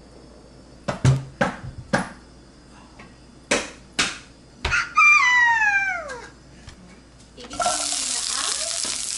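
Several sharp whooshes and knocks, then a loud falling whistle-like tone lasting about a second; about two seconds from the end, chopped onion drops into hot oil in a frying pan and starts sizzling steadily.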